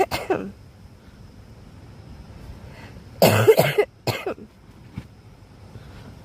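A sick person sneezing: a burst that tails off in the first half second, then a loud sneeze about three seconds in followed quickly by a shorter second one.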